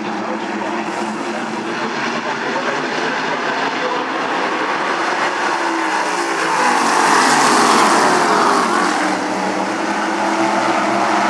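DARE stock race car engines running on the oval track, with one car passing close about six to nine seconds in, the engine sound swelling and then easing off.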